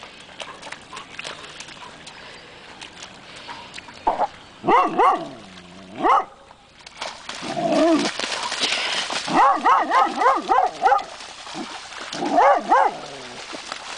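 Chocolate Labrador whining and yipping in short bursts at a stranded salmon it is wary of, with a quick run of yips about ten seconds in. Water splashes as the dog moves through the shallow flood puddle.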